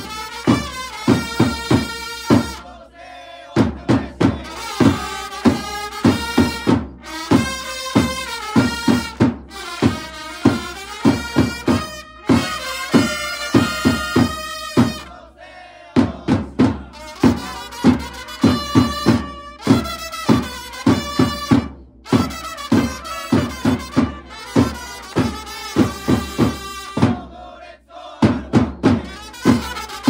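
Japanese pro-baseball cheering band playing player cheer songs: trumpets carry the melody over a steadily beaten bass drum, with the group chanting the words and clapping along. The music breaks off briefly between songs, about three and a half and sixteen seconds in.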